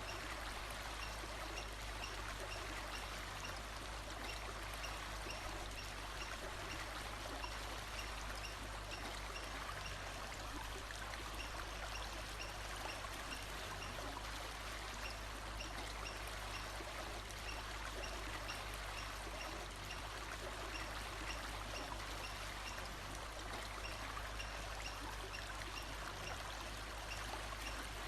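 Steady rushing of a stream or running water, with a faint high-pitched chirp repeating at an even pace in the background for part of the time.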